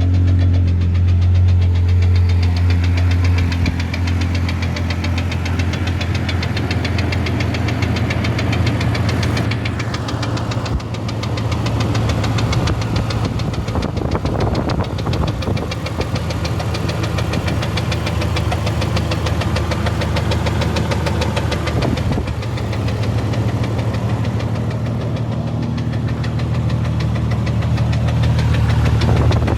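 1996 Jeep Grand Cherokee's 4.0L inline-six engine running with a steady, low, slow knock. The knock comes from a piston skirt broken off on cylinder #6.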